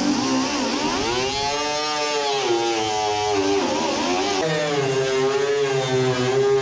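Electric angle grinder running under load, grinding paint off sheet steel down to bare metal. Its whine rises and sags as it is pressed to the work, then settles lower about four seconds in.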